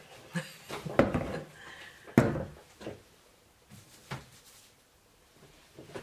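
A handful of separate knocks and bumps as things are handled and set down, the loudest about one second and about two seconds in.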